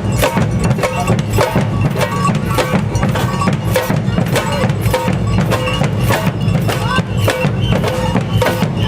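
Samba band drumming a steady, driving rhythm: a continuous low drum pulse under sharp, regular clicking strikes.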